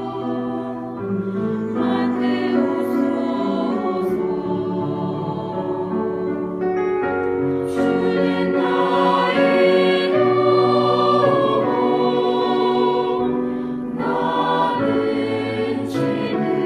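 Mixed four-part church choir singing a hymn, with long held chords that change every second or two and swell louder about halfway through.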